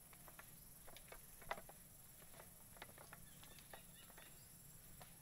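Faint footsteps on a concrete path: soft, slightly irregular clicks about twice a second, the loudest about a second and a half in, over a steady high-pitched hiss.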